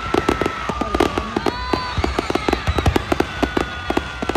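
Fireworks display: a dense run of rapid crackling pops and bangs over a low rumble, with several whistling fireworks whose tones glide slowly up and down in pitch.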